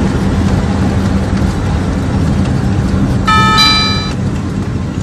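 Steady engine and road noise inside a moving car's cabin. A little past three seconds in, a short electronic chime of two overlapping notes sounds over it.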